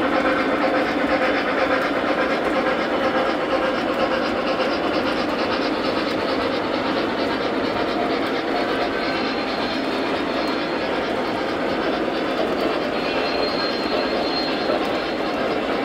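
Model freight train rolling on metal track: a steady clatter of wheels clicking over the rail joints. A faint high squeal comes in twice in the second half.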